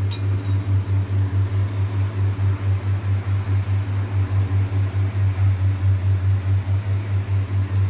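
Steady low machine hum, pulsing about five times a second, with a faint hiss over it.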